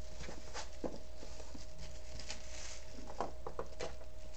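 Scattered light taps and clicks of a hand working a 3D printer's touchscreen control panel, a few near the start and a cluster a little over three seconds in. Behind them runs a steady low hum with a faint steady tone.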